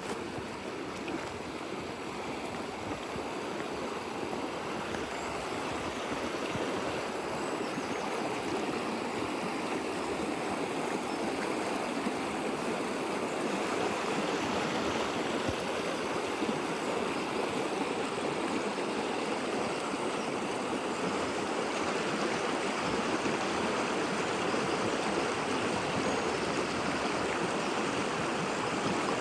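River water running steadily over a stony bed, a continuous rushing that grows slightly louder over the first few seconds and then holds.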